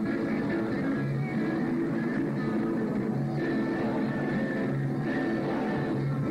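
Rock band playing live, with guitars over a moving bass line.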